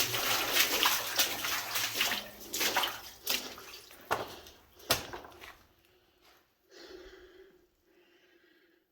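Legs wading through knee-deep water in a flooded mine passage: steady splashing and sloshing with a few sharp splashes, dying away about six seconds in to faint water sounds.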